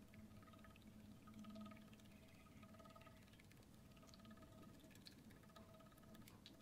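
Near silence, with faint scattered soft ticks of a felt-tip marker dabbing dots onto clear slime.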